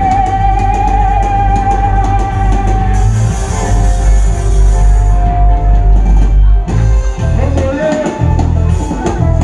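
Live Congolese ndombolo band music, loud and heavy in the bass, with electric guitar, drums and singing. A long held sung or played note near the start; the music thins briefly about seven seconds in, then the bass comes back.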